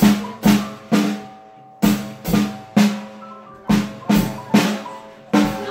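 A toddler hitting a drum kit with drumsticks: loud single strikes at about two a second, in short runs of three or four with brief pauses, each hit ringing and dying away.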